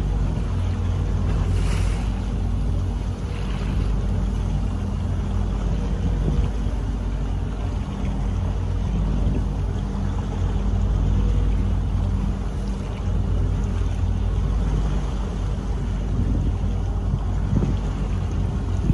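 Steady low boat engine hum, with wind rushing over the microphone.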